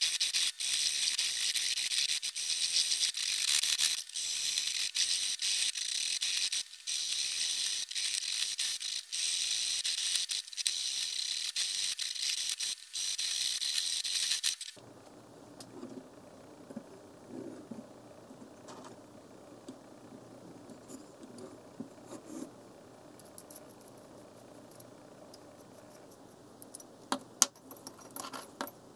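Cylindrical diamond hone scraping back and forth along the serrations of a steel bread knife held in a guided sharpening jig: a steady, high scratching hiss with brief breaks between strokes that stops abruptly about halfway through. Near the end there are a few sharp metallic clicks as the guide rod is handled.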